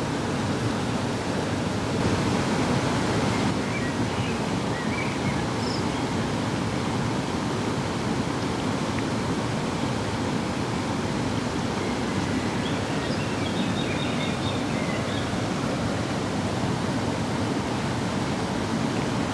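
Steady rushing of a fast-flowing stream. A few faint, high chirps break through twice, around a quarter of the way in and again past the middle.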